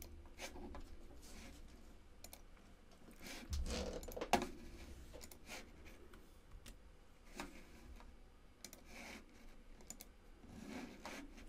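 Faint, scattered clicks of a computer mouse and keyboard, a few taps at a time with gaps between them, as video links are copied and pasted.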